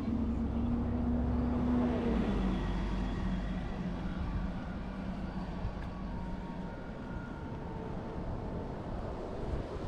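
Road traffic: a vehicle's engine hum, loudest at first, drops slightly in pitch and fades about two seconds in as it passes, over the steady rumble of street traffic.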